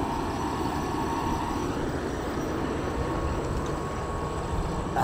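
Steady rushing of flowing river water, a continuous even noise heavy in the low end.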